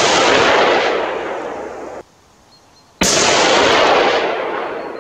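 Two rifle shots from a Sauer 404 bolt-action rifle, each a sharp report followed by a long rolling echo that fades over about two seconds. The first shot's echo is cut off suddenly about two seconds in, and the second shot fires about three seconds in.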